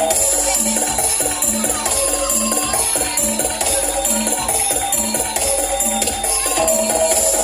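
Loud music with a steady beat of about two pulses a second, over a continuous high, rattling percussion.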